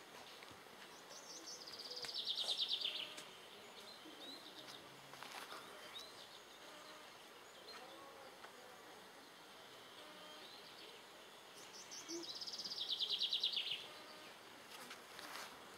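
A songbird singing a fast, falling trill twice, about ten seconds apart, with faint short chirps between.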